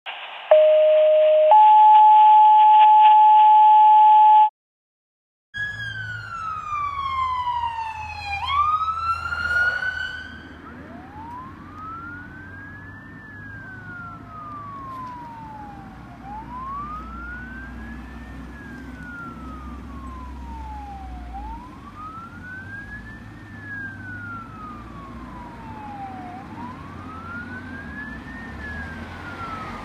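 A two-tone fire-dispatch alert over a radio: one steady tone for about a second, then a higher steady tone for about three seconds. After a short gap, an approaching fire vehicle's electronic siren wails with a low engine rumble under it, first in a long falling and rising sweep, then rising and falling about every five seconds.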